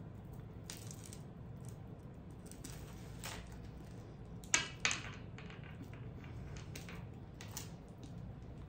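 A few light clicks and clinks of costume jewelry being handled, the loudest two close together a little past the middle, over a steady low room hum.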